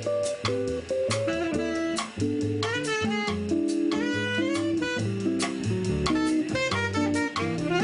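A live jazz quartet playing: a horn carries a gliding melody over archtop guitar chords, a walking upright double bass and a drum kit with cymbals.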